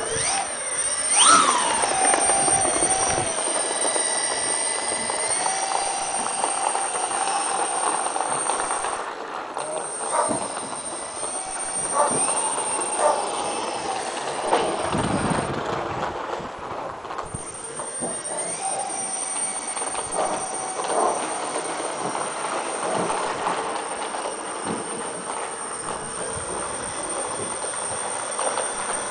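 Four brushless electric motors and propellers of an RC C-130 Hercules model whining as the throttle is worked during taxiing. The pitch rises sharply about a second in, then drops and climbs again several times, with a steady thin high whistle underneath.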